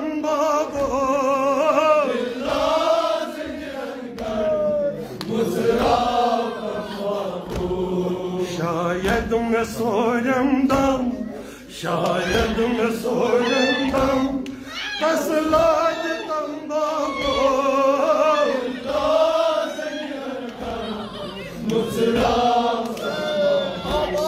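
Kashmiri noha, a mournful sung lament, chanted by a male reciter with a group of men's voices singing along.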